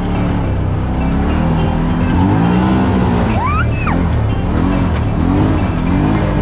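UTV engine revving up and down over and over as it drives, its pitch rising and falling about once a second, with music underneath.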